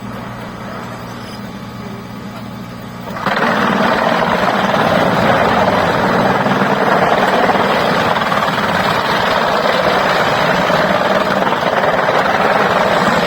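Sawmill machinery running: a steady engine hum, then about three seconds in a much louder, steady rushing noise sets in and continues.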